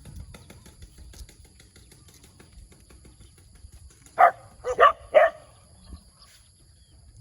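Puppy barking: four short, sharp barks in quick succession about four seconds in, all within about a second.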